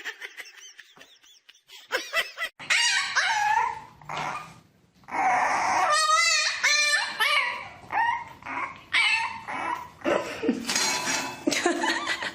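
A dog barking and whining, with a quick run of short, high calls about halfway through.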